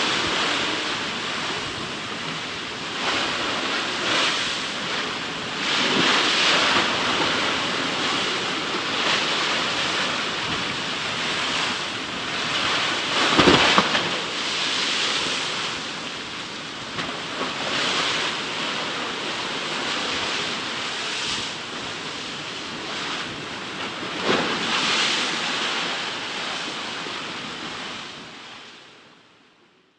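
Sea waves breaking and washing in against a shore in repeated surges every second or two, with one heavier crash about halfway through. The sound fades out at the end.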